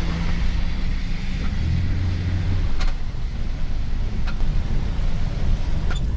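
Truck engine and road noise heard from inside the cab while driving in heavy rain: a steady low hum under an even hiss. Three sharp clicks come about a second and a half apart in the second half.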